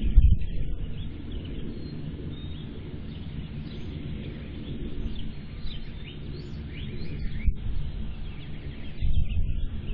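Outdoor ambience picked up by a security camera's microphone: a low rumbling noise, heavier at the start and again near the end, with a few short bird chirps in the middle.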